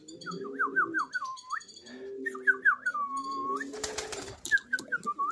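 Domestic pigeons cooing, a repeated coo that rises and falls, with quick high whistled chirps from other birds over it. About four seconds in comes a brief burst of wing flapping as a pigeon takes off.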